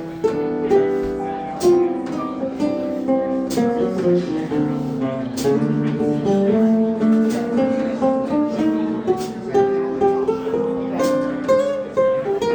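Instrumental break of a slow jazz ballad: guitar and piano playing melody and chords with no vocal, guitar notes plucked clearly.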